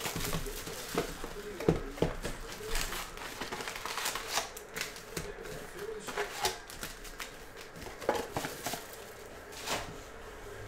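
A 2021 Panini Contenders Football hobby box being opened and its foil-wrapped card packs handled and pulled out: irregular crinkling of the pack wrappers with light taps and scrapes of cardboard.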